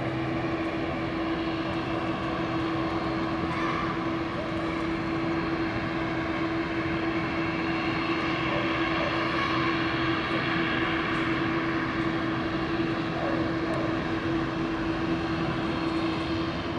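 Airbus A350's Rolls-Royce Trent XWB turbofan engines on landing approach: a steady jet drone with a constant low hum and several fainter whining tones above it.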